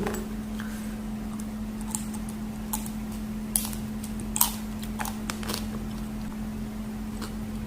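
Short scattered clicks and crunches of eating, a handful in a few seconds, from chewing and handling freshwater crab with the pineapple salad, over a steady electrical hum.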